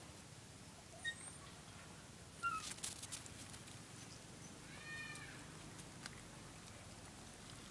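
A single short, high whining animal cry that rises and falls, about five seconds in. A few sharp clicks come a couple of seconds before it.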